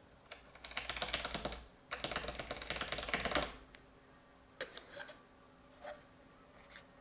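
Mechanical keyboard switch on a Logitech G613 (Romer-G) pressed rapidly over and over in two runs of about a second and a half each, then a few single clicks. The key is being worked up and down to feed isopropyl alcohol into the switch and clean out its double-tap fault.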